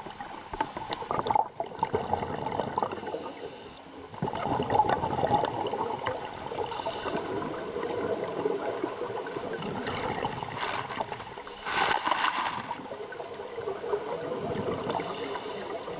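Scuba diver breathing through a regulator, heard underwater: a steady gurgle of bubbles with several louder bursts of exhaled bubbles.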